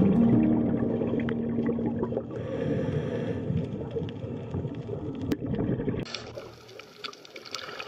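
Underwater ambience: a long low tone over a dense gurgling rush of water, which changes abruptly about six seconds in to a thinner, hissing water sound full of small crackles.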